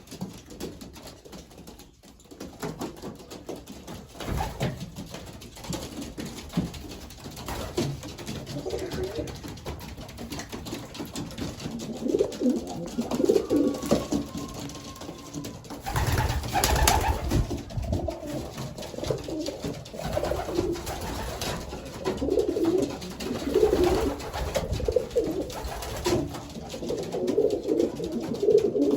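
Racing homing pigeons cooing in a small loft, repeated low coos that grow busier from about twelve seconds in. A brief loud burst of noise comes about sixteen seconds in.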